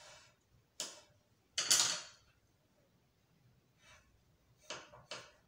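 Pencil drawing on paper along a plastic pattern ruler, in several short strokes, the loudest about two seconds in.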